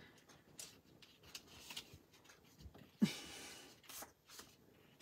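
Quiet rustling and small taps of cardstock being handled and pressed on a wooden tabletop. About three seconds in comes a brief, louder hissing rush lasting under a second.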